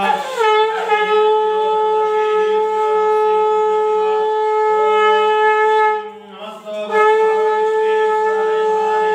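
Conch shell blown in two long, steady blasts: the first opens with a downward slide in pitch before settling into one held note, and the second starts about seven seconds in after a short break.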